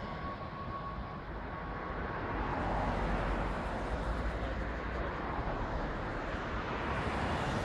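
Business jet's turbofan engines heard across the airfield, a thin whine fading out about two seconds in, then a car passes close by on the road, its engine and tyre noise swelling and dying away over the next few seconds.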